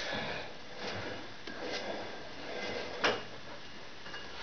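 Soft knocks and clatters of a heavy steel plate being turned by hand on a lathe, with one sharper knock about three seconds in.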